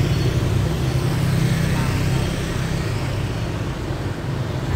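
Motorbikes and scooters passing on the street, their engines running as they go by, the sound slowly fading over the first few seconds, with faint voices in the background.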